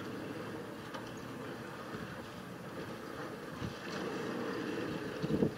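A long-boom demolition excavator's engine runs steadily as its hydraulic crusher jaws bite into the concrete of the top floor. A few sharp knocks of breaking concrete come near the end.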